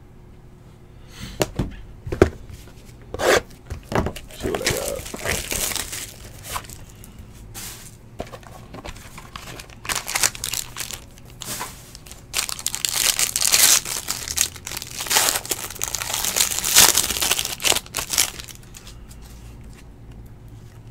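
Trading card packaging being torn open and crinkled by hand, in irregular bursts that are busiest and loudest in the second half, then stopping a couple of seconds before the end.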